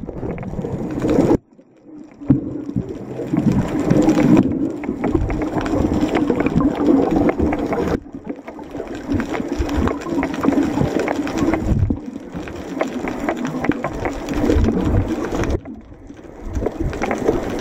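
Underwater sound of water moving around the camera, with bubbling and crackle, cutting out sharply about a second and a half in and changing abruptly a few more times.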